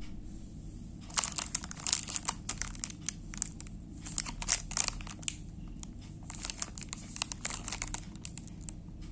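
Crinkly plastic wrapper of a snack cake being squeezed and handled, giving irregular sharp crackles in two spells with a short lull about six seconds in.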